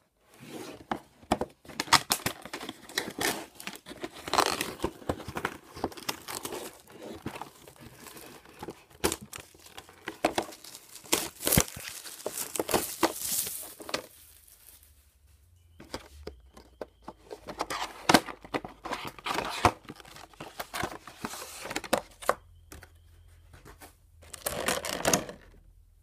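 Packaging being torn, crinkled and handled as a cardboard trading-card collection box with a clear plastic tray is opened: dense crackling and rustling with sharp knocks, pausing for about two seconds halfway through.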